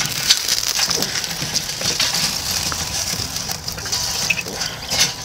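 Hot charcoal poured from a chimney starter into a kettle grill: the coals tumble and crackle in a dense hiss of small clicks, with a few sharper clicks standing out.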